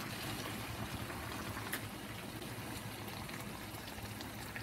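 Sweet-and-sour escabeche sauce simmering in a frying pan, a steady soft bubbling, with a faint click of a metal spoon against the pan about two seconds in.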